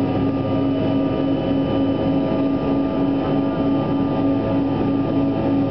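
Cabin noise inside a CRJ-200 regional jet during the climb after takeoff: the steady rush of air over the fuselage and the drone of its rear-mounted General Electric CF34 turbofans, with a steady low hum and a fainter higher tone.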